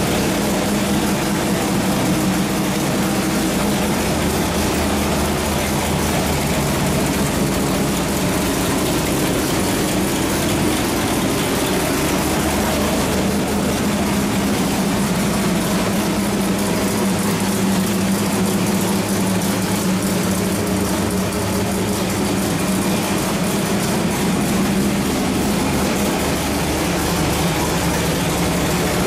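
A carbureted 434-cubic-inch small-block Chevrolet V8 with a hydraulic roller cam, running steadily at idle on an engine dyno.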